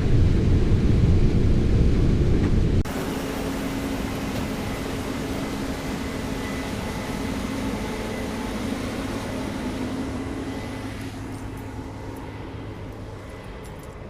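Combine harvester running through corn, with a heavy low rumble that changes abruptly about three seconds in to a steadier machine sound with a faint whine, which slowly fades toward the end.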